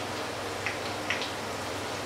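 Hot oil sizzling steadily around fritters shallow-frying in a pan, with two sharp pops of spattering fat in the first half.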